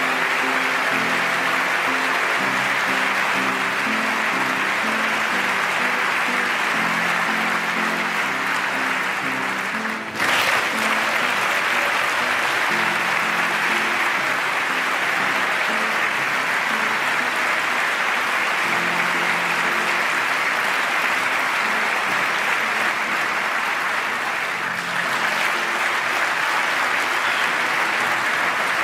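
A large crowd applauding steadily in a big hall, with slow instrumental music laid underneath, its low notes held and changing every second or so. About ten seconds in, the applause cuts out for an instant and resumes at once: an edit splice.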